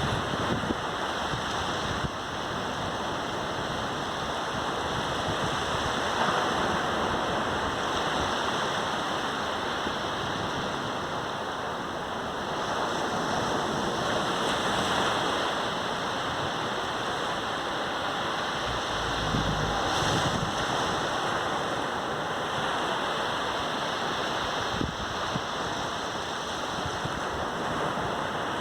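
Sea waves breaking and washing up on the beach, a continuous rushing surf that swells and eases gently every several seconds.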